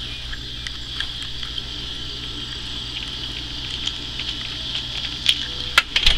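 Steady high-pitched chorus of evening insects, crickets or katydids, over a low steady hum, with a few sharp clicks near the end.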